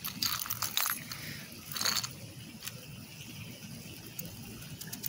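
Plastic scratcher scraping the coating off a scratch-off lottery ticket resting on brick, in a few short scratching strokes over the first three seconds.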